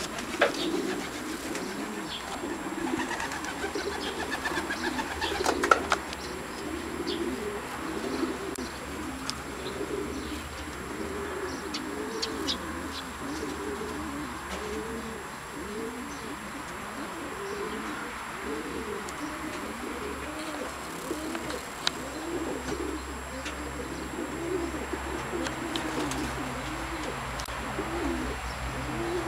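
Domestic pigeons cooing continuously inside a wooden kennel, one low coo after another, with a sharp knock about six seconds in.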